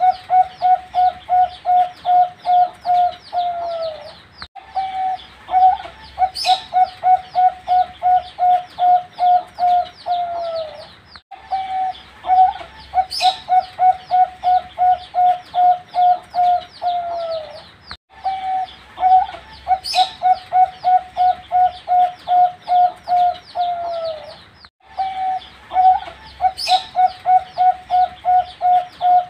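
Young zebra dove (perkutut) cooing its song: a phrase of rapid, evenly spaced short notes ending in a falling coo, repeated about every six to seven seconds, with a brief high chirp once in each phrase.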